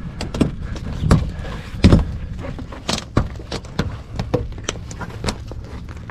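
Fabric soft top being fitted to a truck: its snap fasteners clicking home and the canvas rustling as it is pulled over the frame, an irregular string of clicks and knocks, the loudest about two seconds in.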